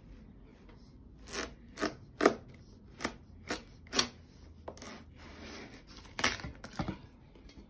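Large kitchen knife sawing through a watermelon's rind in short, separate strokes, about ten of them at uneven spacing, the loudest a little over two seconds in.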